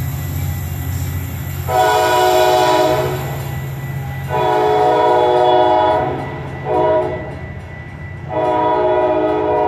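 Metra commuter train's horn sounding the grade-crossing signal: two long blasts, a short one, then a long one, over a steady low rumble.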